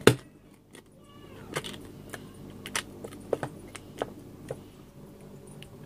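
Plastic fish-flake tub being opened: a sharp snap as the lid comes off, followed by a series of light plastic clicks and taps as the tub is handled.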